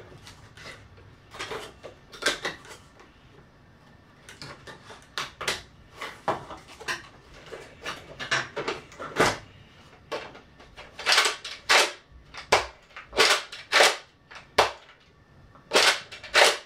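Light plastic clicks and knocks as a Nerf Sonic Ice Retaliator blaster and its magazine come out of the cardboard tray and are fitted together, then, from about eleven seconds in, a run of loud plastic clacks, roughly one every three-quarters of a second, as the blaster's priming slide is worked back and forth.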